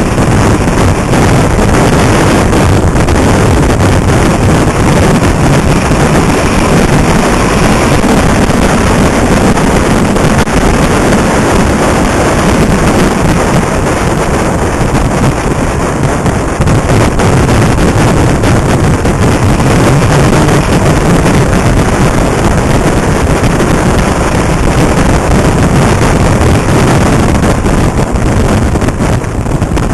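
Steady, loud wind rush on the microphone of a motorcycle being ridden at speed, with the bike's engine running underneath.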